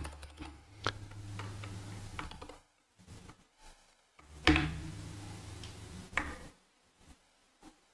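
Computer keyboard keystrokes and clicks, a few sharp ones standing out, about a second in, four and a half seconds in and six seconds in. A low hum comes and goes twice, each time for about two seconds.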